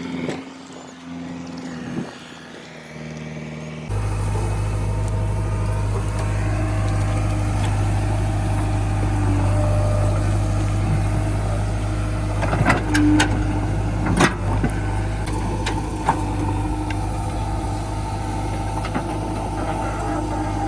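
JCB 3DX backhoe loader's diesel engine running steadily. It comes in much louder and deeper about four seconds in, with a few sharp knocks around two-thirds of the way through.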